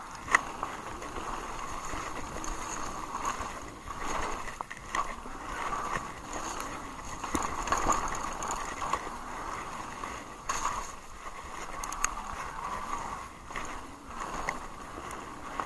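Haibike Sduro electric mountain bike descending a trail at speed: its tyres rolling over dirt, gravel and stone paving with a constant rushing noise, broken by sharp clacks and rattles from the bike over bumps, the loudest about a third of a second in.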